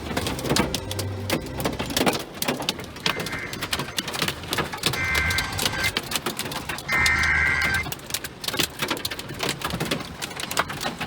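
Large hailstones pelting a car, a dense, irregular clatter of hits. Two short high tones sound about five and seven seconds in.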